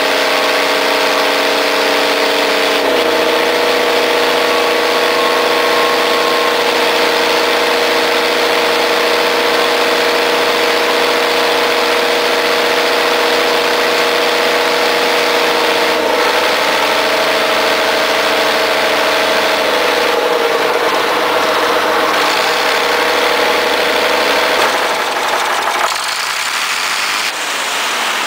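Diesel engine of an old Bray wheel loader running steadily as the machine drives, its note dipping in pitch a few times as engine speed changes. Near the end the steady note gives way to rougher noise.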